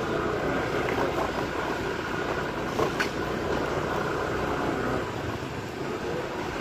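Steady road and engine noise from riding a two-wheeler through street traffic. A brief sharp click comes about three seconds in.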